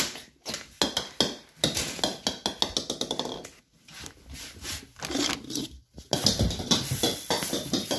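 Rapid, irregular clicks and knocks of a small dog scrabbling on a tile floor after its ball.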